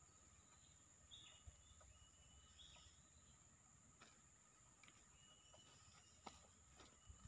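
Faint outdoor ambience: a steady high insect drone with a few short, distant bird chirps and a couple of faint clicks.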